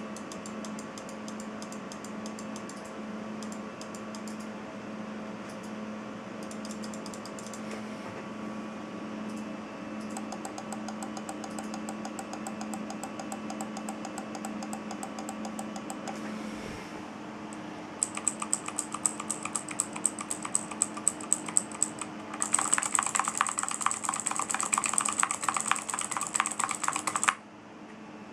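Clicking and typing on computer peripherals, including a mechanical keyboard with Cherry MX Blue switches. The clicks are faint and rapid for the first half, then come as separate louder clicks, then as fast, loud typing that stops suddenly near the end, over a steady low hum.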